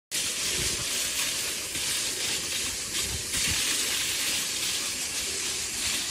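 A dog sled sliding over snow behind a single pulling dog: a steady hiss with irregular low bumps, starting suddenly.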